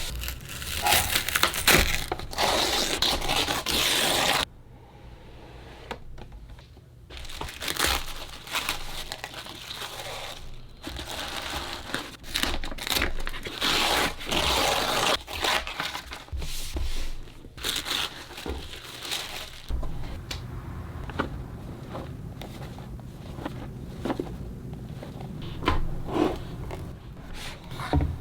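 Cosmetics packaging being handled and opened: irregular crinkling, rustling and tearing of wrapping and box, with a quieter pause a few seconds in.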